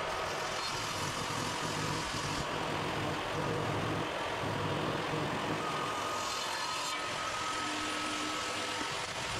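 A workshop machine's motor running steadily, with a faint high whine joining about six seconds in.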